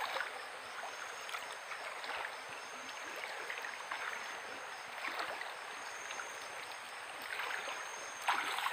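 Feet wading through a shallow stream, water sloshing irregularly around the legs over the steady flow of the stream, with a louder slosh near the end.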